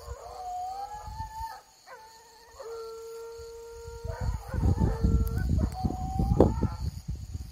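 Hunting hounds baying and howling on the trail. Several long, drawn-out cries at different pitches overlap and waver, with low rumbling noise on the microphone about halfway through.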